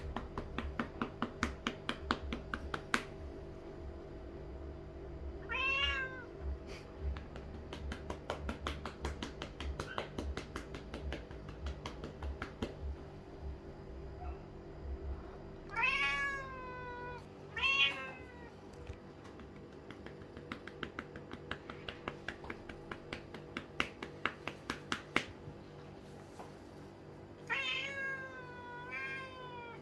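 Lynx point Siamese cat meowing loudly, about six times, between runs of quick hand pats on its rump; the meows come when the patting stops, the cat asking for more. The pats are sharp taps, fast at first and then scattered.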